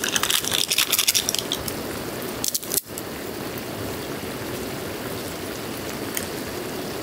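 Cooking in a pan on a camp burner: utensils clinking and scraping amid crackling for the first second and a half, then a steady hiss of the food cooking.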